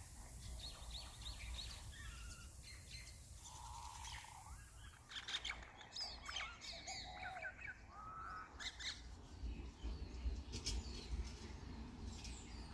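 Faint birds chirping: scattered short chirps and trills, busiest in the middle stretch, over a low steady outdoor background.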